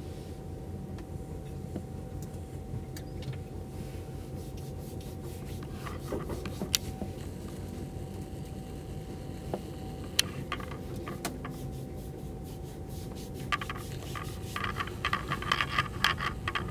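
Moving train heard from inside a passenger coach: a steady low rumble of wheels on the track with a faint constant whine. A few sharp clicks come through, and a burst of scraping rattles starts near the end.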